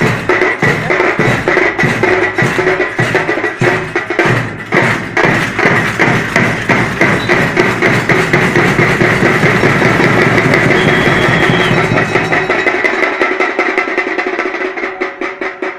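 Zanj, the large Maharashtrian hand cymbals, clashing in a fast, even marching rhythm with a drum beating along. About two-thirds of the way through the drum drops out and the cymbals carry on alone, more quietly.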